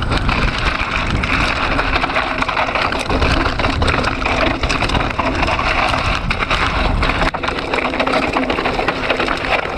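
Mountain bike descending a dry, rocky dirt trail: knobby tyres crunching over loose gravel and stones, with many small rattles and clicks from the bike over the bumps, over a steady low rumble of wind on the microphone.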